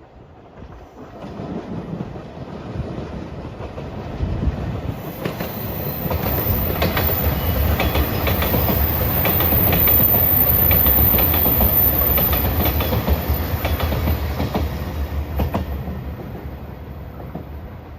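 A JR Shikoku 2700 series diesel multiple unit passes. Its deep engine and running rumble builds up, peaks about ten seconds in and fades away, with wheels clicking rhythmically over the rail joints as the cars go by.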